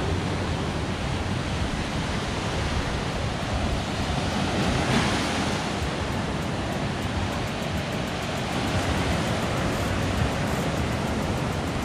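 Surf breaking and washing up on a sandy beach, a steady rush of noise with a louder surge about five seconds in.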